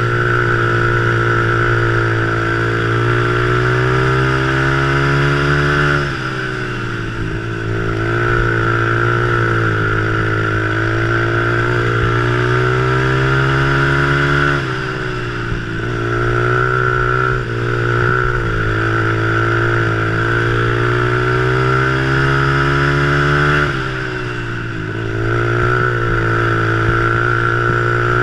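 Small single-cylinder engine of a vintage 200cc-class three-wheeler ATC at racing speed, heard close up from the machine: the revs climb steadily down each straight, then drop sharply as the rider backs off into the turns, about six, fourteen and twenty-four seconds in.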